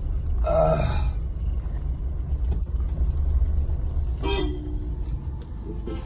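Car engine and road rumble heard from inside the cabin as the car creeps along slowly, with two short tonal toots, one about half a second in and one about four seconds in.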